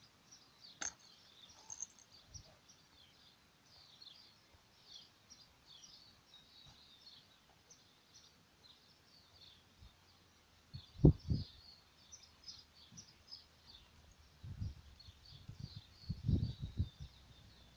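Small birds chirping and twittering in quick, high bursts throughout. A few dull low bumps come in about eleven seconds in and again near the end.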